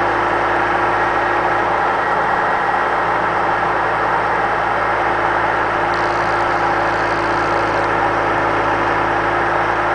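Skid-steer loader engine running at a steady speed, with a constant hum.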